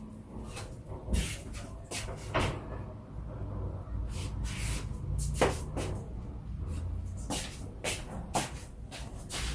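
Kitchen utensils knocking and clicking irregularly, a dozen or so sharp taps, over a steady low hum.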